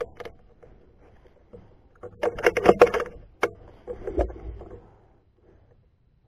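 Air rifle being handled and swung onto a target: rustling and a cluster of clicks, one sharp click, then a dull thump, after which it goes quiet.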